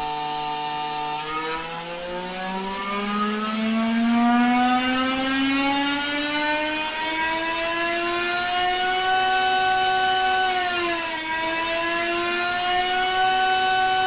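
Honda's 2015 Formula One 1.6-litre turbocharged V6 engine revving: it holds a steady note briefly, then climbs smoothly in pitch for several seconds. About ten seconds in the pitch dips briefly, and then it holds steady again.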